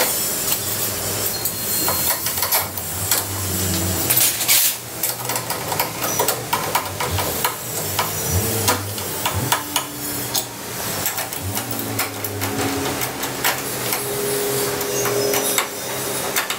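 Hand tools working a bolt and nut on a kart's steel mounting bracket: a hex key and spanner clicking and clinking against the metal in many short, irregular taps.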